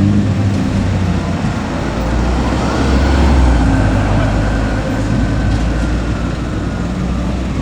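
Vehicle engine and road noise on the move, with a faint siren wail that rises about two and a half seconds in and then slowly falls.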